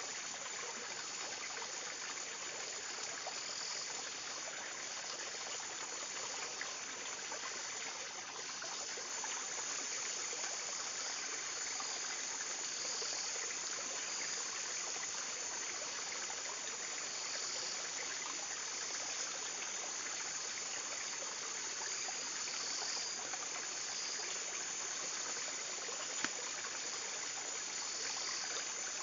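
Steady rush of flowing stream water, with occasional faint clicks from the split ban-ban strips being woven.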